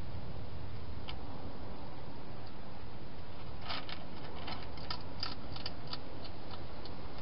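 A wild hedgehog crunching dry food at a bowl inside a clear plastic feeding box: a run of short, irregular, crisp clicks starting about halfway through, over a steady background hiss.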